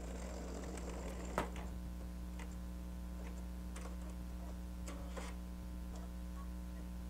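Embroidery machine running as it sews: a steady hum with scattered sharp ticks.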